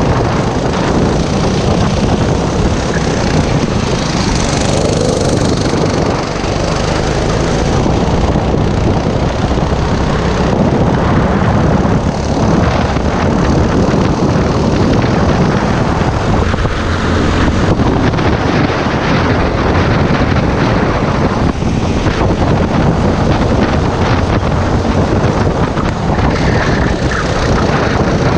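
Racing kart engine running hard at race speed, heard loud and close from the kart itself, with brief small dips in level as the driver lifts for corners.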